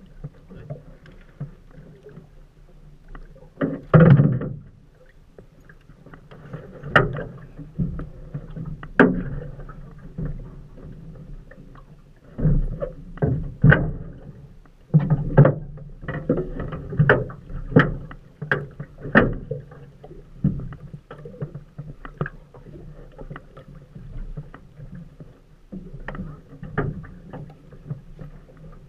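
Irregular knocks and clunks on an aluminium fishing boat's hull, one loud knock about four seconds in and a run of them in the middle, over a steady low hum.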